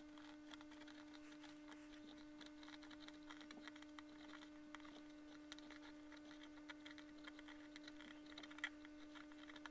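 Near silence: a faint steady electrical hum, with faint scattered ticks over it.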